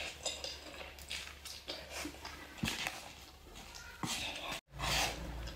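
A person slurping and chewing instant cup noodles eaten with chopsticks, in short irregular spurts. The sound drops out for a moment near the end.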